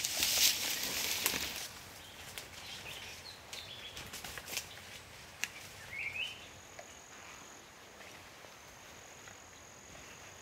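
Forest ambience: rustling and crackling for the first second and a half, then scattered small clicks, a short rising bird chirp about six seconds in, and a thin, steady, high tone from about seven seconds on.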